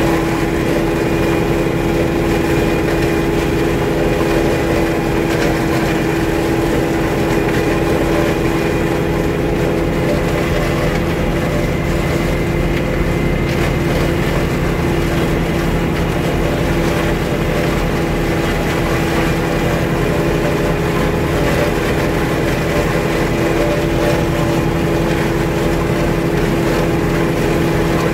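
Tractor engine running steadily under load while driving a flail mower through wet grass, heard from the driver's seat. It is a constant drone with a steady pitch and no revving.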